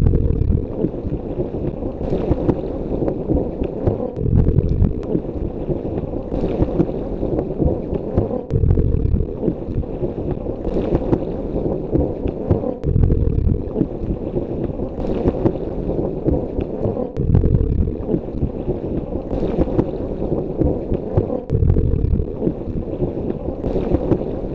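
Muffled underwater ambience with a slow breathing cycle repeating about every four seconds, a short hiss, then a low bubbling swell, as from a diver breathing through a scuba regulator.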